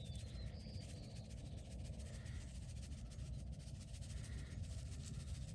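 A plastic shaker bottle of dry barbecue rub being shaken over a rack of ribs, a faint light rattle and patter, over quiet outdoor background noise with a few faint, distant bird calls about two seconds apart.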